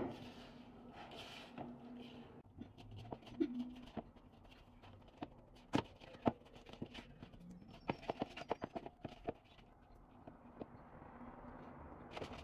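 Hands mixing and pressing crumbly pie dough in a bowl: soft rubbing and squishing with scattered sharp clicks of hands against the bowl, including a quick run of clicks about eight seconds in.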